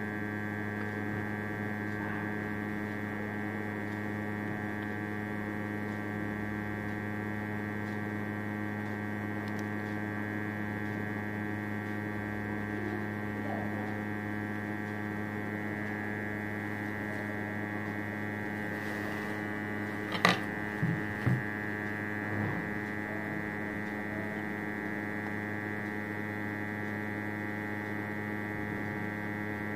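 Hot air rework station blowing steadily through a wide nozzle, heating an eMMC chip on a phone board: a constant, even hum with many overtones. About twenty seconds in, a sharp click and then a few small knocks.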